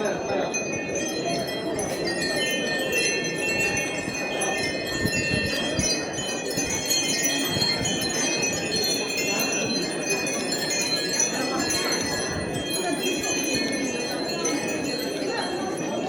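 Many wind chimes ringing together, a continuous tinkle of overlapping high tones, over the murmur of a crowd.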